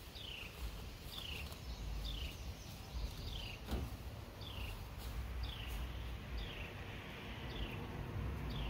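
A bird repeats a short call that slides down in pitch, about once a second, over a low, uneven rumble.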